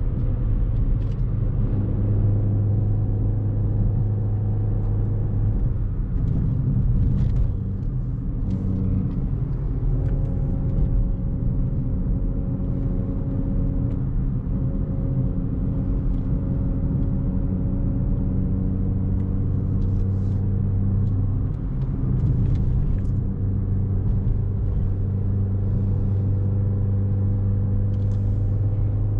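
Chevrolet Beat's small petrol engine, breathing through a K&N air filter, running steadily under load on a long uphill climb. There is a short dip in the note about three-quarters of the way through.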